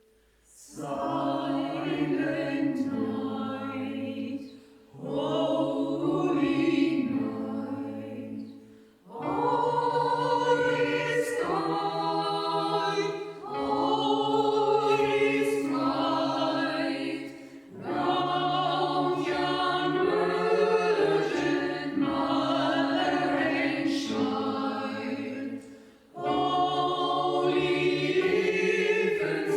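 Staff choir singing, beginning about a second in and moving in phrases broken by short breath pauses.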